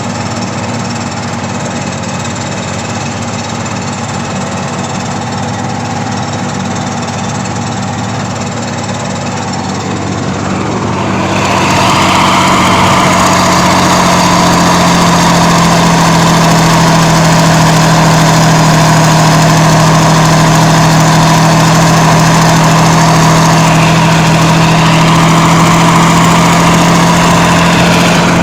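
Kirovets K-701 tractor's diesel engine running steadily. About eleven seconds in it grows louder and stays at the higher level.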